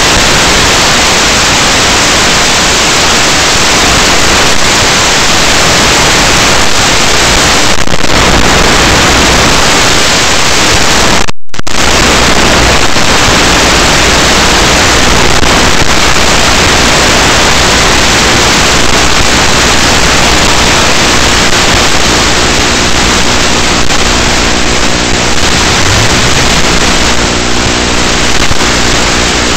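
Loud, steady hiss of static from an analog FPV video link's audio channel, cutting out completely for a moment about eleven seconds in; faint steady low tones show under the hiss near the end.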